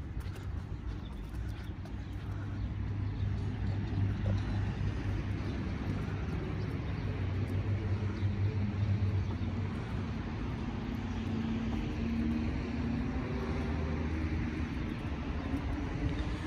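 A motor vehicle's engine running with a steady low hum over a bed of outdoor noise.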